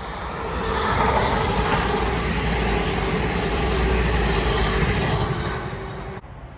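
A train passing at speed on the main line: rumbling wheel and engine noise builds up about a second in, holds with a steady hum, then eases off and cuts off abruptly near the end.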